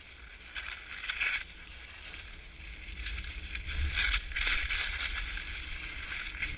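Skis scraping and hissing over groomed snow, swelling in repeated surges as the skier turns, over a steady low rumble of wind on the microphone.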